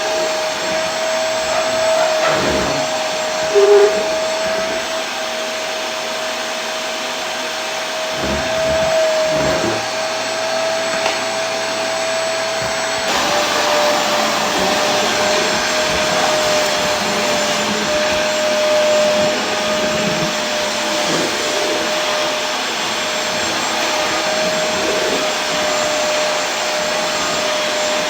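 Vacuum cleaner running steadily: a constant rushing of air with a steady motor whine. There is a brief louder blip about four seconds in, and the whine steps slightly lower in pitch about halfway through.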